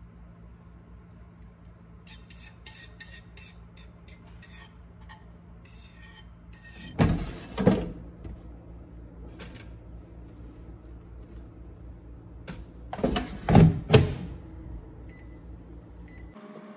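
A metal spoon clinking and scraping against a bowl in a quick run of small clicks, then the plastic basket drawer of a Cosori air fryer knocking as it is pulled open, and knocking again a few seconds later as it is slid shut. Near the end a couple of short beeps come from the air fryer's touch panel, over a low steady hum.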